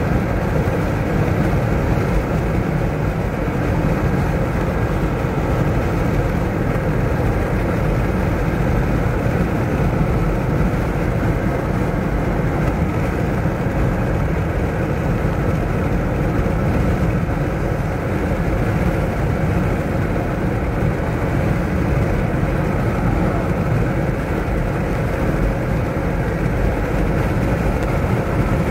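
Steady road and engine noise inside a car's cabin while driving down a highway.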